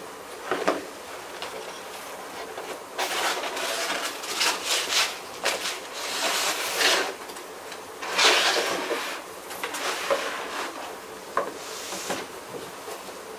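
Rustling and sliding scrapes with a few light knocks and clicks: hands handling a Gitzo GT4330LS tripod and its parts. A single knock comes about half a second in, and the handling grows busier from about three seconds, loudest a little past the middle.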